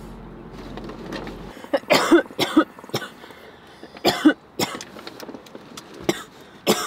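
Repeated harsh coughing in short clusters, starting about two seconds in, after inhaling a hit from a portable electronic dab rig.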